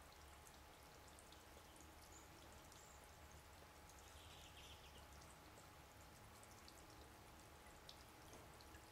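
Near silence: faint outdoor background with a low hum and scattered faint, short high-pitched ticks.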